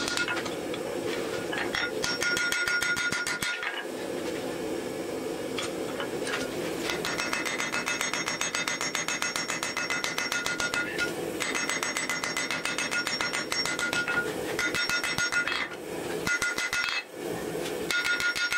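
Hand hammer striking a red-hot steel axe blank on an anvil in rapid repeated blows, the anvil ringing with a steady high tone. The hammering stops briefly a few times.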